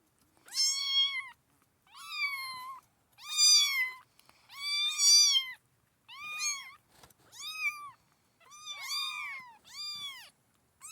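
Kittens meowing: about ten short, high-pitched mews, each rising and falling in pitch, some overlapping as more than one kitten calls at once.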